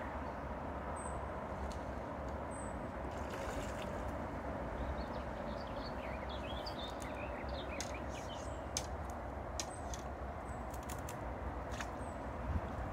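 Steady rush of flowing river water with birds chirping over it, and a run of short sharp clicks in the second half.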